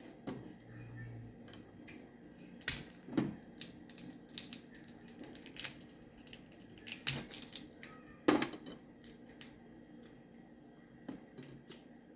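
Steamed crab and crawfish shells being cracked and picked apart by hand: irregular sharp cracks and small clicks, the loudest about three seconds in and again a little past eight seconds.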